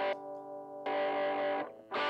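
Distorted electric guitar chord ringing through a Joyo crunch distortion pedal into a tweed Deluxe-style (5e3) valve amp. Twice the sound turns briefly quieter and duller, then returns full, as the signal is switched between the two pedals on the looper.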